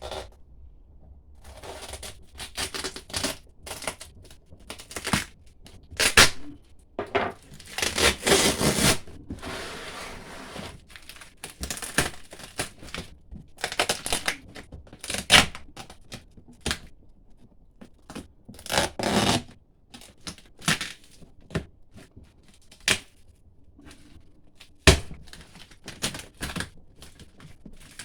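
Duct tape being ripped off a cardboard box in a series of irregular tearing strips, with a longer pull about eight seconds in, among box-flap thumps and rustling.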